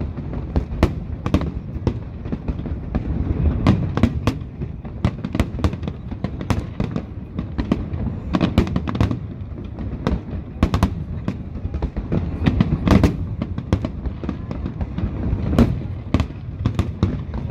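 Aerial fireworks display going off continuously: many sharp bangs and crackles in quick, irregular succession over a steady low rumble.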